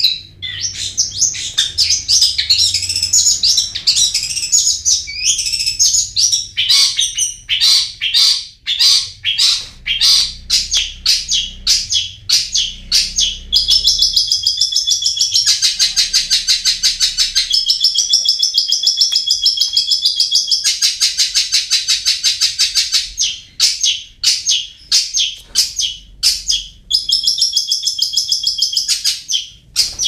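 Long-tailed shrike singing: rapid, high chattering notes, breaking about halfway into a fast continuous trill that stops and starts a few times, then back to separate chattering notes.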